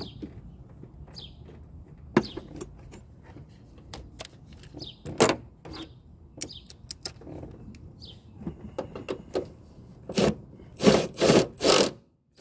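Hand tools and parts being handled in a car's engine bay: scattered clicks, knocks and rubbing, then four loud scraping strokes near the end.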